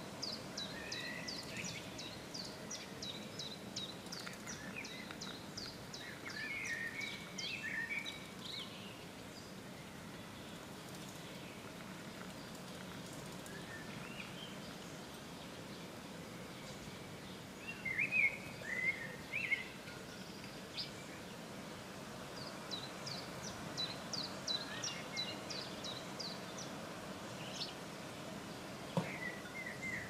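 Small songbirds singing in the background: fast runs of high short notes in the first several seconds and again later, with brief bursts of louder chirping, over a steady outdoor background hum.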